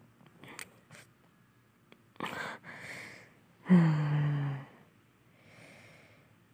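A voice performer's breathing close to the microphone: a few faint clicks, a sharp breath about two seconds in, then a voiced sigh about a second long that falls slightly in pitch, and a faint breath out near the end.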